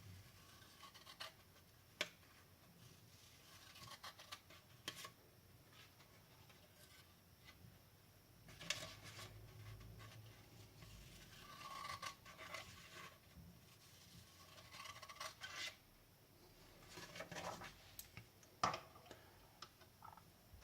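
Freshly sharpened scissors being test-cut: quiet bouts of snipping and rustling at irregular intervals, with a few sharp clicks of the blades closing.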